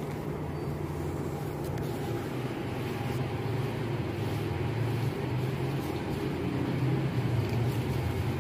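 Steady low mechanical hum under a broad background noise, with no clear events, growing slightly louder over the stretch.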